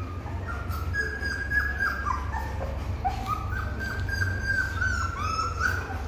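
Several young puppies whining and squeaking in many short, high-pitched cries, often overlapping and some sliding down in pitch, over a steady low hum.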